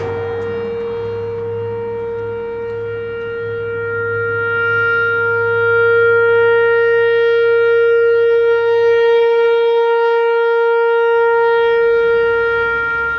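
Whelen Vortex R4 rotating outdoor warning siren sounding a steady full-alert tone, one unchanging pitch. It swells louder about halfway through as the rotating horn turns toward the listener and eases off again near the end.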